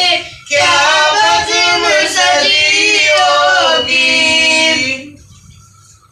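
A boy singing a line of an Urdu naat solo and unaccompanied into a microphone, the melody held and bent over long notes. The singing stops about five seconds in.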